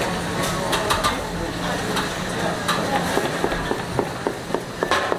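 Kitchen knife chopping through sundae (Korean blood sausage) onto a plastic cutting board: a quick run of knocks, about three or four a second, starting in the second half, over steady background noise.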